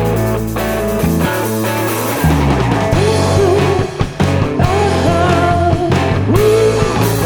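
Rock band playing an instrumental passage: a held bass line with sliding bass notes, and a melody of bending, sliding notes over it.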